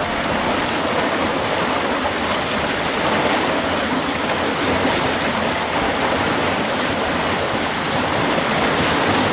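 Fast-flowing river water rushing over rapids, a steady, even sound.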